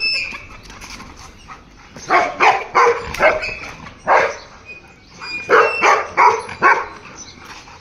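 Golden retriever barking, about ten short barks in quick runs starting about two seconds in.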